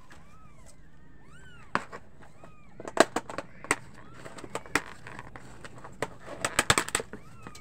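Kittens mewing in short rising-and-falling calls, several in the first couple of seconds and again near the end. Between them come sharp clicks and clatters of young animals nosing and pawing at a plastic food tray, loudest about three seconds in and again around six to seven seconds.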